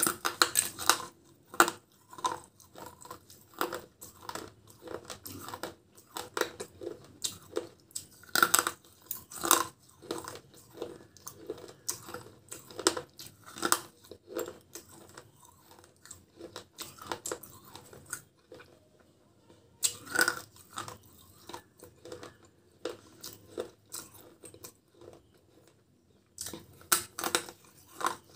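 Crunching and chewing of baked clay: pieces of a terracotta cup bitten off and ground between the teeth close to the microphone, in irregular sharp crunches with brief pauses between bites.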